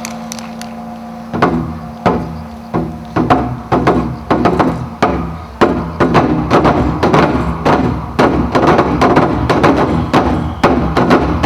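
Percussion music: hard drum strokes begin about a second in, spaced out at first, then quicken into a fast, dense beat.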